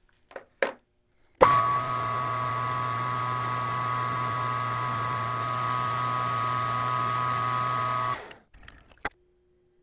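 Metal lathe running while a boring bar cuts the hub bore of a small locomotive wheel, a steady hum with a high whine over it. It starts suddenly about a second and a half in and stops about eight seconds in, with a few light clicks before and after.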